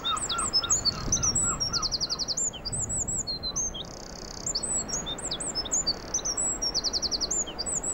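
Eurasian wren singing: a rapid run of high, sharp notes broken by fast trills, twice, with a lower series of repeated notes underneath in the first two seconds.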